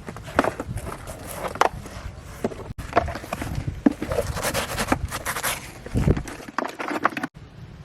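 Irregular knocks, clicks and scrapes from hand work on a children's electric ride-on car's plastic and metal parts, broken off abruptly twice.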